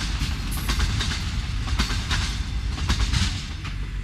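Freight cars at the rear of an Amtrak train rushing past at speed, a heavy rumble with the rapid clickety-clack of wheels over the rail joints. The sound starts to fade near the end as the last car goes by.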